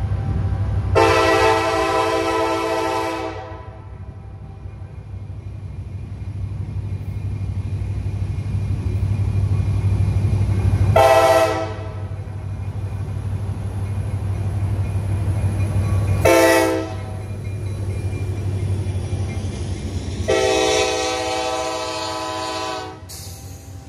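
CSX SD70MAC diesel locomotive sounding its multi-chime air horn four times as it approaches: a long blast, two short ones, then a long one. Under the horn is a steady low diesel rumble that grows as the locomotive nears and gives way to passing freight cars near the end.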